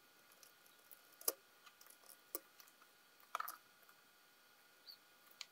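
Faint, sparse scratches and light clicks of a cotton swab wet with alcohol scrubbing a circuit board, with a short scratchy rub a little past the middle. Near silence between them.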